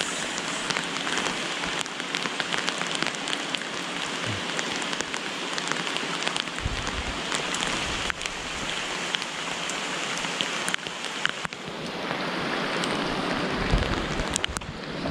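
Steady rain falling on the creek water, an even hiss thick with the sharp ticks of single drops.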